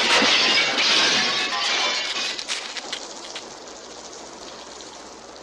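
Film-scene sound effect: a noisy crash with crackling and clattering that fades away over about three seconds, with music under it, leaving only a low background.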